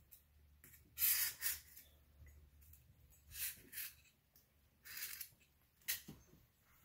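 Felt-tip marker scratching on styrofoam as it traces around the rim of a plastic net pot: a few short, scratchy strokes, the loudest about a second in.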